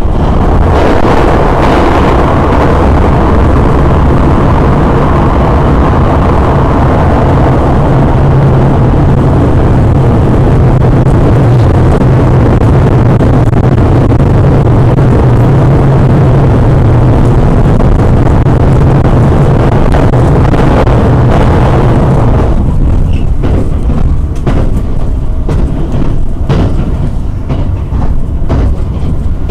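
Running noise of a 287 series limited express train heard from inside the passenger cabin: a loud, steady roar of wheels on rail while it runs through a tunnel. About 22 seconds in it leaves the tunnel, and the roar gives way to lighter, thinner track noise with scattered clicks.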